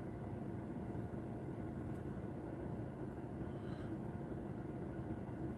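Steady low hum of a car running while parked, heard inside its cabin.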